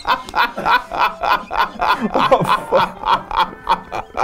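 Two men laughing hard, a long run of rhythmic 'ha-ha-ha' bursts, about three to four a second.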